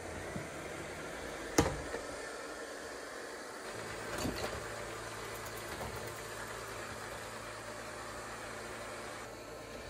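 erabros LS1 LiDAR robot vacuum running on its first mapping pass, a steady whir with a sharp knock about a second and a half in. A low steady hum joins in about four seconds in and drops away near the end.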